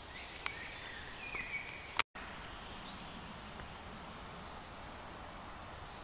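Outdoor woodland ambience with a steady background hiss and a few faint bird calls, high brief chirps among them. A click and a short break in the sound come about two seconds in.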